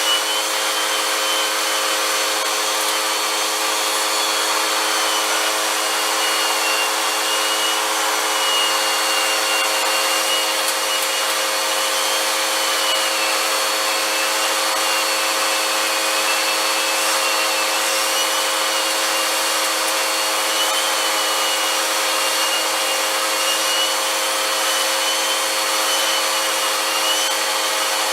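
Vacuum cleaner running steadily, its motor giving a constant whine with a higher whine that wavers slightly in pitch as the airflow changes.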